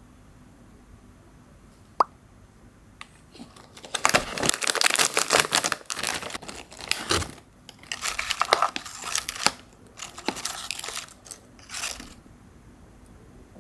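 Crinkling, crunching and tearing from something being handled, in quick bursts with short pauses, after two sharp clicks.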